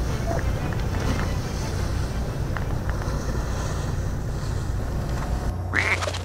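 Wind buffeting the microphone over the low, steady rumble of a fishing boat at sea. Near the end comes a short rising tone.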